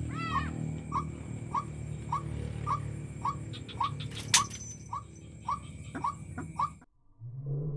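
White-breasted waterhen calls: short notes repeated about two a second, with one rising call just after the start and a sharp click about halfway. The calling cuts off abruptly near the end.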